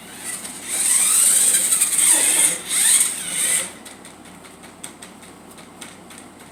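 Toy remote-control car's small electric motor and gearbox whirring in two spurts, the pitch rising and falling as it speeds up and slows, followed by a quieter run of scattered clicks.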